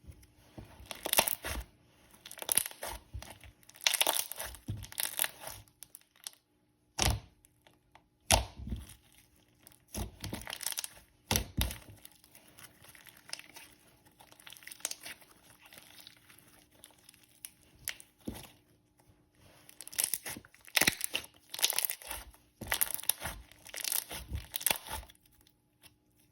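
Thick, glossy beaded slime being worked by hand, making irregular sharp pops, the thwocks and bubble pops of thick slime, with a soft crackle between them.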